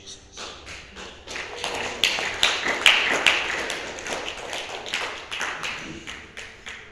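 Scattered applause from a small congregation, hand claps swelling over the first couple of seconds and then thinning out as the song ends.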